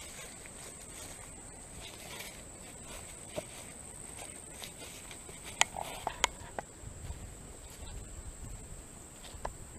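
Insects keep up a steady high-pitched drone. Under it are hikers' footsteps through brush, and a few sharp snaps come a little past halfway.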